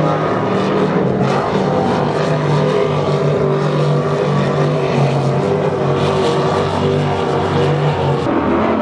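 Loud, steady engine drone with a low pitched hum that holds level without rising or falling.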